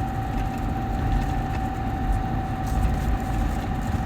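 Vehicle engine running steadily, heard from inside the cab, with a constant thin whine over a low rumble.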